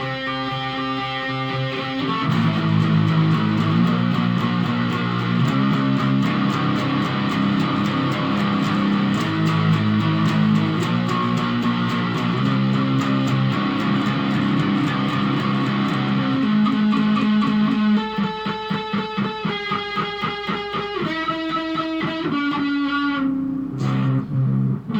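Guitar playing: ringing chords that become fuller and louder about two seconds in, then change near the end to quick, evenly spaced single picked notes.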